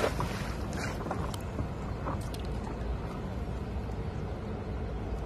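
Thrown cast net landing on the water with a brief splash in the first second, followed by a steady low rumble.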